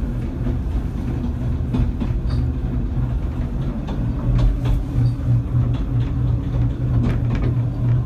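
Narrow-gauge railway carriage rolling along the track, heard from inside the coach: a steady low rumble with scattered clicks and knocks.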